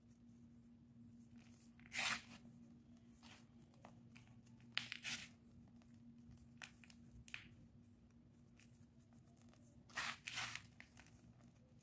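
A hand grabbing, squeezing and dropping crushed slate pencil powder, giving short gritty crunches as the small chunks grind. The loudest come about two seconds in, around five seconds and near ten seconds, with fainter ticks between.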